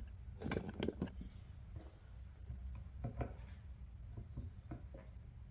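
Faint scattered clicks and rubbing of hands working small wires free of a plastic wiring connector, with two sharper clicks about half a second apart near the start and another few about three seconds in.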